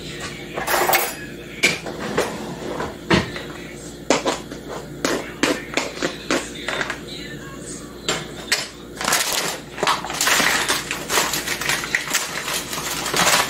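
A measuring cup scooping flour and knocking against a plastic mixing bowl: a string of separate taps and clicks, then a denser stretch of scraping and rustling in the last few seconds.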